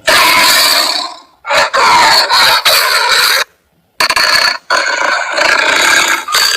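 Carnage symbiote creature sound effect: harsh, loud scraping and screeching in three long bursts, broken by short silences about a second and a half and three and a half seconds in.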